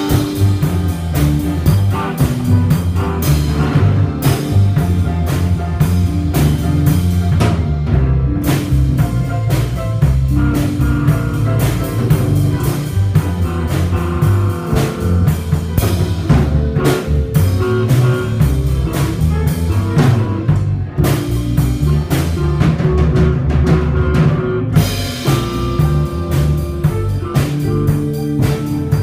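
Live band jamming: electric guitar played through an amp over a drum kit keeping a steady beat, with a strong low end.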